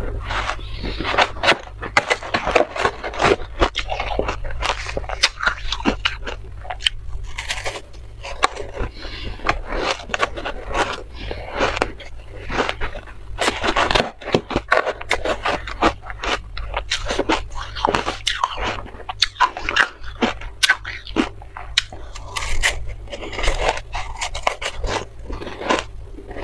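Close-miked crunching and chewing of soft, crumbly buckwheat-style shaved ice coated in matcha powder, mixed with a metal spoon scraping and scooping through the ice in a metal tray. Dense, irregular crackly crunches.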